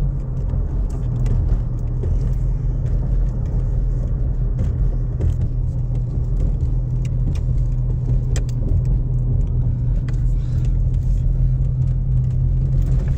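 Steady engine hum and tyre drone inside the cabin of a car driving slowly, with scattered light ticks and rattles.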